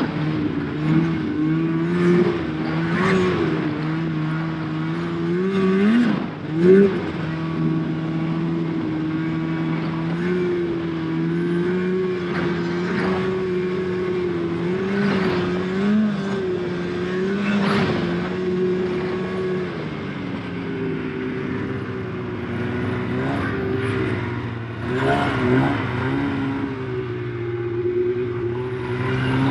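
Snowmobile engine running hard at high revs, its pitch rising and dipping as the throttle is worked, with short revs around six seconds in and a drop in engine speed about two-thirds of the way through.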